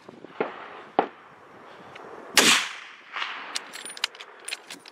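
Gunshots fired at a running wild boar: two sharp, fainter shots in the first second, then a louder shot about two and a half seconds in with a short ring-out. A run of light clicks follows near the end.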